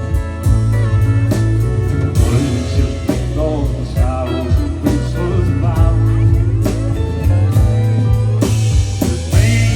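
Live band playing an instrumental passage of a country song, led by guitar over bass, with no sung words.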